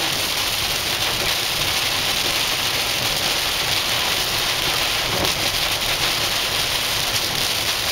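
Heavy rain pouring down in a thunderstorm, a dense steady hiss of drops hitting the ground and surfaces.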